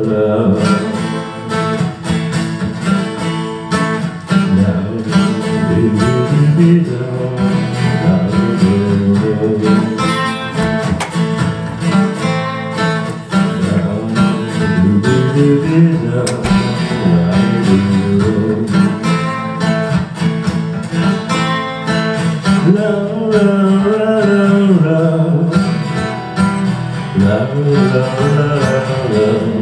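Acoustic guitar accompanying a song, with a melodic line and a voice singing at times.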